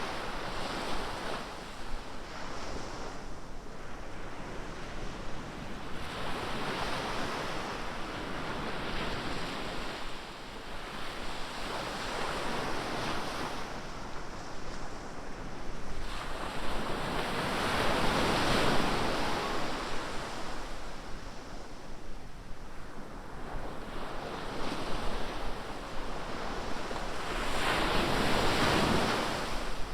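Ocean surf: waves breaking and washing in, in surges every few seconds, with the biggest breakers about two-thirds of the way through and near the end. Some wind buffets the microphone.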